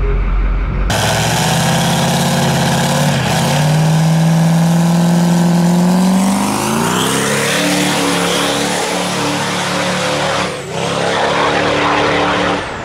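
Duramax diesel drag-race truck launching from the line: the engine holds steady revs, dips briefly about three seconds in, then climbs and pulls away with a rising high whistle. There is a short break in the sound about ten and a half seconds in, and it fades near the end. The launch is soft and lazy because the truck was left in burnout mode.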